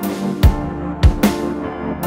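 Background music: held chords with drum hits on the beat.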